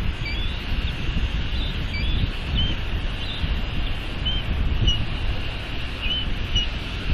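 Wind buffeting the microphone with a steady low rumble, and over it a dozen or so short, high bird chirps, about two a second.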